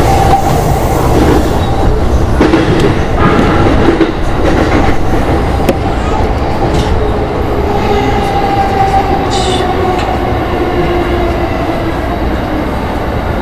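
Electric commuter train heard from inside the front car, running on the rails with clicks over the rail joints and a steady whine. It eases off a little toward the end as the train pulls in along a station platform.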